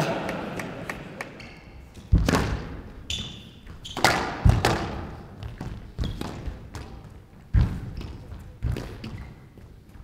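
A squash rally: the ball is struck by rackets and hits the walls and floor, a sharp knock every second or two, with brief shoe squeaks on the court floor. A noisy crowd sound dies away over the first second or so.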